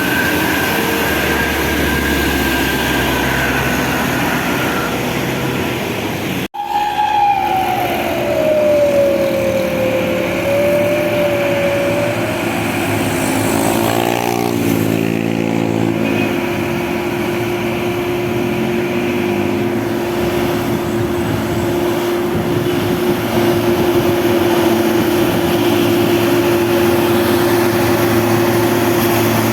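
Heavy road traffic with large vehicles, most likely buses, running past, their engines giving a steady rumble and a sustained whine. The sound drops out briefly about six seconds in; a whine then falls slowly in pitch, a wavering cluster of several tones comes around fourteen seconds in, and a single steady tone follows.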